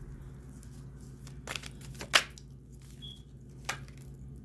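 Tarot cards being handled and laid out: a few sharp, short clicks of card on card, the loudest about two seconds in, over a low steady hum.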